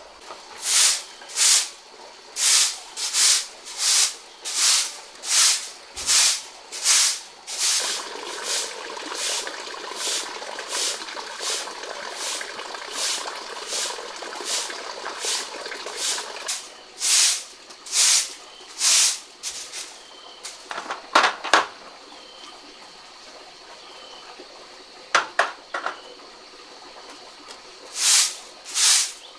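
A long-bristled broom sweeping a concrete floor in regular swishes, about one and a half strokes a second, stopping for several seconds in the latter part and starting again near the end. Running water pours steadily for a while in the middle, and a few sharp clicks fall in the pause.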